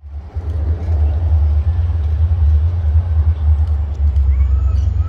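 Deep, steady rumble of two C class diesel-electric locomotives hauling a train toward the listener. It fades in over the first half second.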